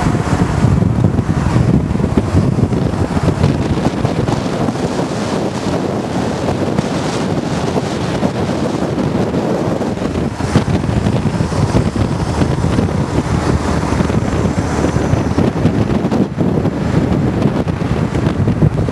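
Steady road noise from a moving car, with wind buffeting the microphone over the engine and tyre noise.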